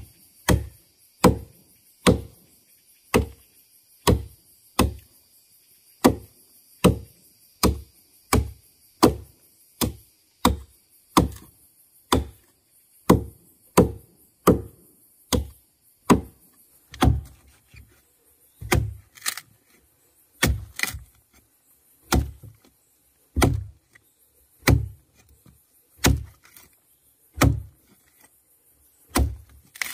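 Wood being chopped with steady, repeated blows, a little over one a second at first and then slightly slower. From about halfway the blows land with a deeper thud.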